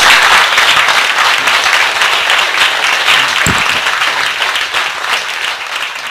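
Small audience applauding: a dense patter of hand claps that slowly dies down.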